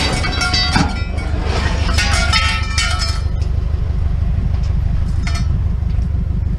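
Loose scrap metal clanking and ringing as it comes off a truck being dumped, thick for the first three seconds and then down to a few stray clinks, over the steady low rumble of the running truck.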